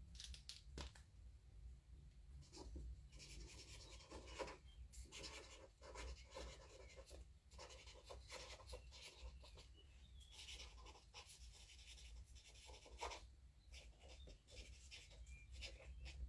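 Felt-tip paint marker writing on sketchbook paper: faint scratchy strokes coming in short runs with brief pauses.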